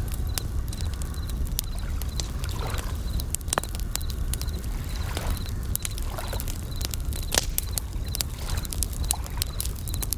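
Campfire crackling with many sharp pops over a low rumble, waves washing softly now and then, and bell crickets (suzumushi) chirping in short, high repeated trills.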